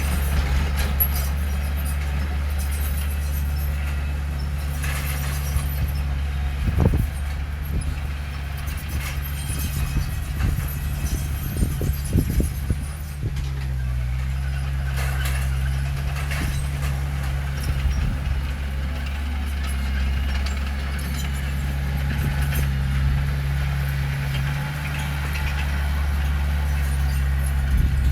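Heavy diesel engine of earthmoving machinery running steadily, with a few short metallic clanks and knocks in the middle.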